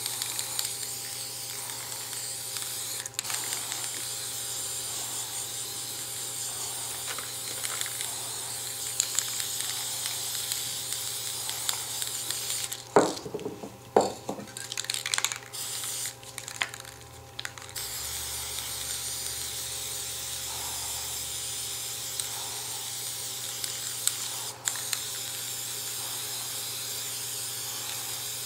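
Aerosol spray paint cans hissing in long, steady sprays. About halfway the spraying stops for a few seconds of sharp knocks and clatter while cans are swapped, then a second long spray follows.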